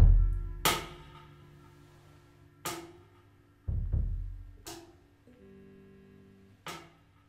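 Drum kit playing sparse accents: four cymbal crashes about two seconds apart, each left to ring out, with two deep drum hits between them. A quiet held instrument note sounds briefly near the end.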